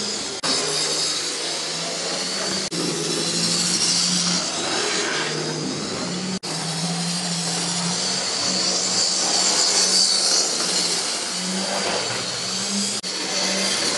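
Model railway locomotives' small electric motors whirring steadily as trains run around the layout, with a steady hum and a strong hiss. The sound drops out for an instant a few times.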